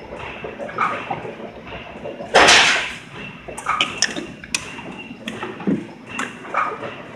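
Spring-forming machine cycling while it makes small extension springs from .020-inch stainless steel wire: a run of sharp mechanical clicks and clacks from the tooling, with a louder half-second rush of noise about two and a half seconds in.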